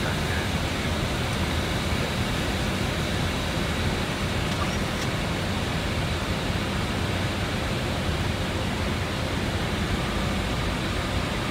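Steady flight-deck noise of an Airbus airliner in flight: an even rush of airflow and ventilation over a low drone, unchanging in level.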